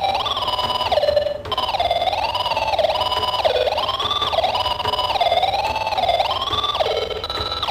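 Background music: a single wailing melody line that glides and steps between held notes, with a brief break about a second and a half in.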